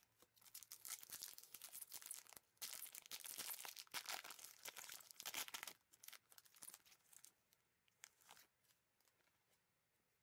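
Plastic wrapper of a trading card pack being torn open and crinkled in gloved hands: a dense crackling rustle for about five seconds, then a few light crinkles as the cards come out.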